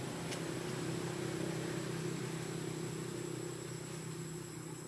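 A steady low engine hum, rising a little in the first second or two and then slowly easing off.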